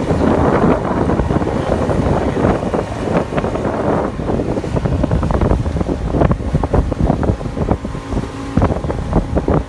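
Motorboat under way, its engine running under a dense rush of wind and water noise, with wind buffeting the microphone.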